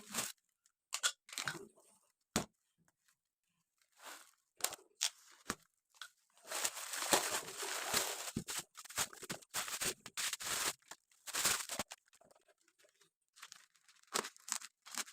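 Facial tissue package being opened by hand: bouts of tearing and crinkling packaging, short scattered rips with a longer stretch of continuous tearing in the middle.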